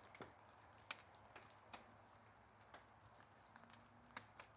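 Faint, irregular ticks and taps of water drops, a few each second, over near silence.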